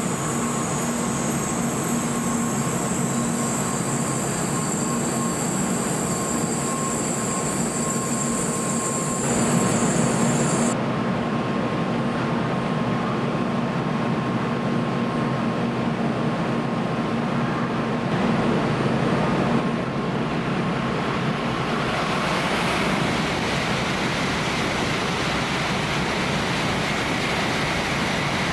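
Tokaido Shinkansen train noise, a steady rail rumble and rush with a constant low hum. Thin high tones cut off suddenly about eleven seconds in.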